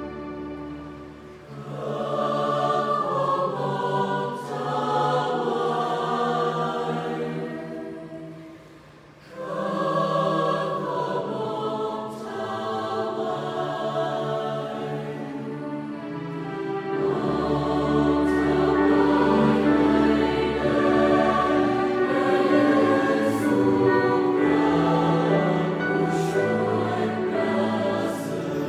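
Mixed choir singing a Catholic hymn in Thai with digital piano accompaniment. The phrases break for a short pause about a third of the way in, and a low bass line joins about halfway as the singing grows louder toward the end.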